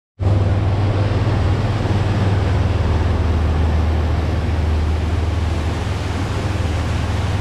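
Fountaine Pajot MY40 motor catamaran under way: a steady low engine drone with a constant rush of wind and water over it.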